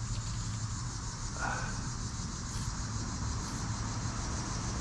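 A steady, high, pulsing chorus of insects, with a low steady rumble underneath and one brief mid-pitched sound about a second and a half in.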